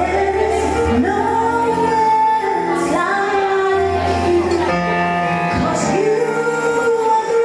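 A female singer holding long, sustained notes over a band with a steady bass line during a sound check.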